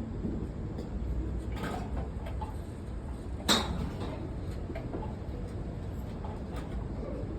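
A golf club strikes a ball once, a sharp crack about halfway through, with a fainter knock earlier, over a steady low background rumble.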